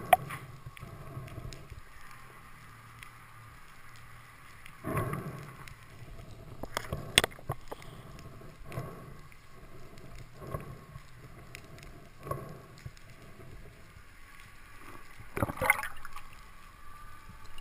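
Underwater sound picked up by a diver's camera: a steady watery hiss and hum with scattered knocks and clicks. The sharpest knocks come near the start, about seven seconds in, and near the end.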